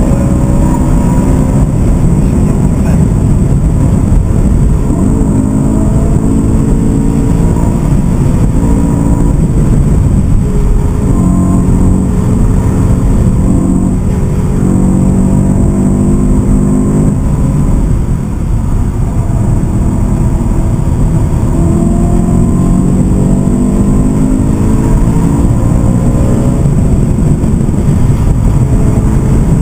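BMW M3 E92's V8 engine heard from inside the cabin, pulling hard with its pitch climbing and breaking at each gear change, easing off briefly about two-thirds of the way through before pulling again, over steady road and wind noise.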